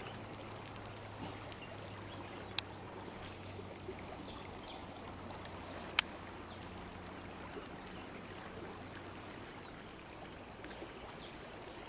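Steady rush of a fast-flowing, swollen river, with two sharp clicks from a baitcasting reel, about two and a half and six seconds in.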